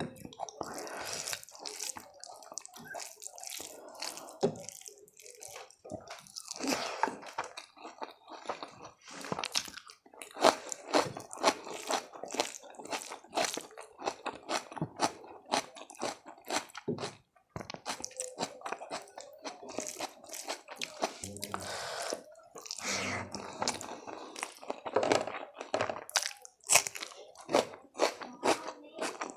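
A person eating close to the microphone: crunchy bites and chewing, in quick irregular crackles throughout.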